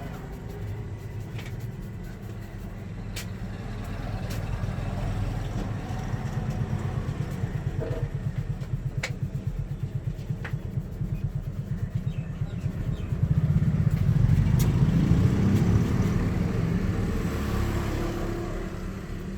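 A motor vehicle's engine running close by: a low rumble with a fast, even pulse that swells about two-thirds of the way through and then fades. A few sharp clicks sound on top of it.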